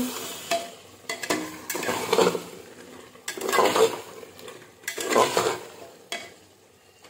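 Metal spoon stirring sliced potatoes into thick onion-tomato masala in a pressure cooker, four scraping strokes against the pot about one every one and a half seconds, dying away near the end.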